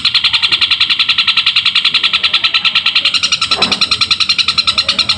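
Long-tailed shrike (cendet) calling in an unbroken run of harsh, rapid chirps, about a dozen a second, imitating the chatter of a tree sparrow in its continuous fighting song.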